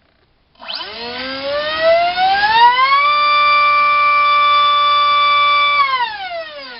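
Turnigy SK3 HeliDrive 2700 kV brushless motor spinning a DAL 4045 two-bladed bullnose propeller on a thrust stand, starting about half a second in with a whine that rises in pitch as it spools up, holds steady at top speed for about three seconds while producing roughly 1.2 kg of thrust, then falls in pitch as it winds down near the end.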